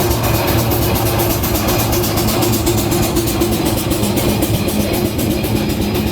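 Steam engine running, with a rapid, even beat over a steady hum.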